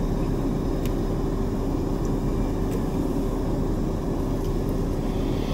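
Steady hum inside a running car's cabin: an even rush of noise with a constant low tone.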